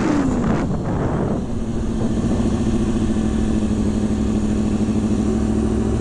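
Sport motorcycle engine coming off the throttle, its pitch falling, then holding a steady low hum near idle while the bike brakes into a stoppie. Wind noise rushes over the microphone in the first second or so.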